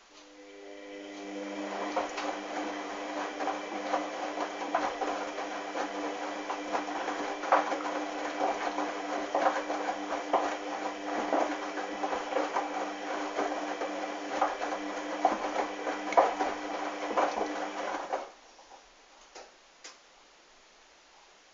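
Hoover washing machine's drum motor speeding up over a couple of seconds and turning the drum at tumble speed, a steady motor hum with irregular knocks and clatter from the wet, sudsy towels tumbling; it stops abruptly about 18 seconds in, as the drum pauses between turns.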